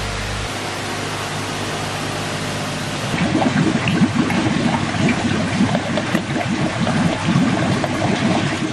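Steady rush of water, then from about three seconds in, dense irregular splashing and sloshing as a crowd of eels thrashes at the surface, feeding on floating pellets.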